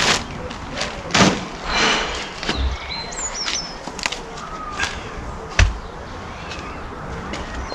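Knocks, scrapes and clatters of garden pots and odds and ends being moved about by hand, with the loudest thud about five and a half seconds in. Birds chirp now and then.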